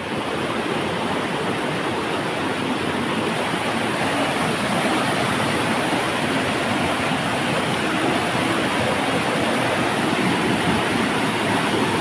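Fast-flowing stream rushing over rocks in small waterfall cascades: a steady, dense rush of white water.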